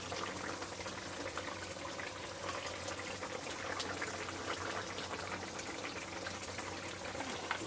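Bhola fish curry simmering in the pan with mustard oil just added: a steady bubbling hiss with small pops, over a faint low hum.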